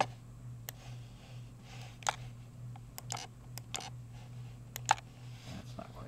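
Computer mouse buttons clicking, about eight scattered clicks with two in quick succession just before the end, over a steady low hum.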